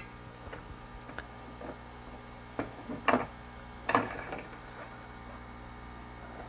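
A few soft clicks and taps from handling a small circuit board and soldering tools on a desk, about two to four seconds in, over a steady low electrical hum.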